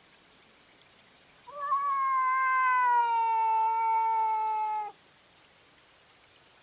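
A cat giving one long, drawn-out yowl lasting about three and a half seconds, its pitch easing slightly downward before it cuts off abruptly.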